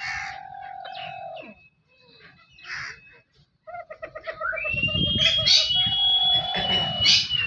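Captive birds calling: drawn-out whistled notes and chirps. One long whistle at the start, a short pause about halfway, then several held notes with sharp chirps over them.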